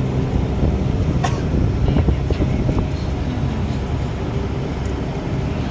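Turboprop airliner's engine and propeller running with a steady, low, droning hum, heard from inside the passenger cabin.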